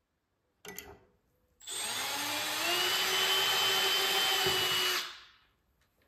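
Cordless drill drilling holes to attach a metal drawer slide rail. A short blip of the motor comes about a second in, then a steady whine of about three seconds that rises a little as it speeds up and stops around five seconds in.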